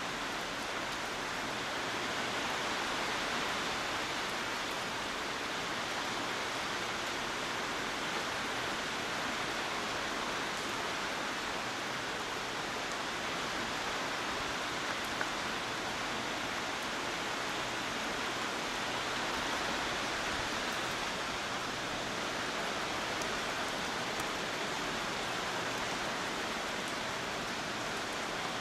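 Heavy typhoon rain falling steadily in a constant hiss, with no letup.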